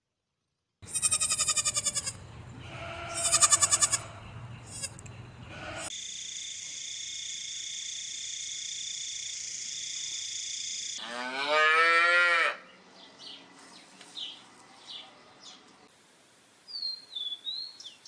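A run of animal sounds. First a cat calls twice, then a grasshopper buzzes steadily for about five seconds, then comes one loud call rising in pitch. Faint chirps and a short high bird call follow near the end.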